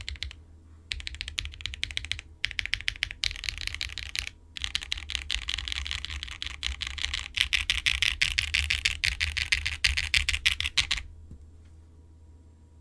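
Typing on a Wind x65 mechanical keyboard with stock Red Jacket linear switches, a POM plate, a foam-filled case and ABS Cherry-profile keycaps. Short runs of rapid keystrokes are broken by brief pauses, then fast, steady typing stops a little before the end.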